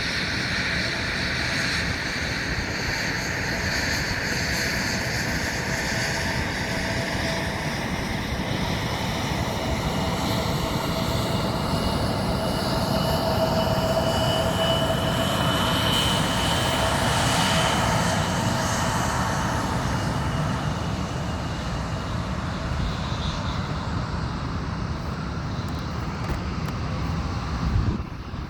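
Airplane taking off and going by: a steady engine rumble with a whine whose pitch slowly falls as it passes, loudest about halfway through.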